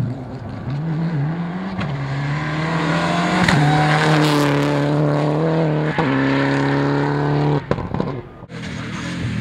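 Rally car engine passing close at full throttle: revs climb, then hold high through two quick gear shifts about three and a half and six seconds in. Near the end it lifts off abruptly with a few sharp cracks before the engine note rises again.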